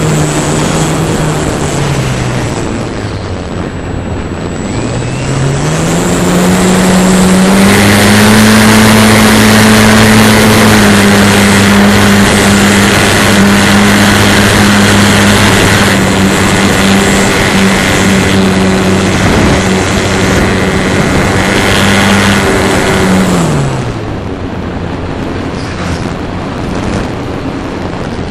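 A radio-controlled model airplane's motor and propeller, heard from a camera on board, with wind rushing past. The throttle eases down about two seconds in and comes back up a few seconds later. The plane then holds a steady pitch for most of the stretch, until the throttle is cut back near the end, leaving mostly wind.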